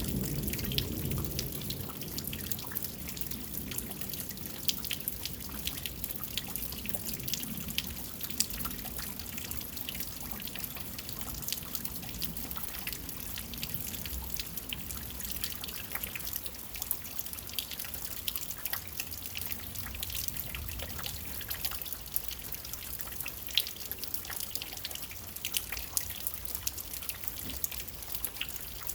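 Rain falling steadily: an even hiss with many irregular close drops and drips ticking through it.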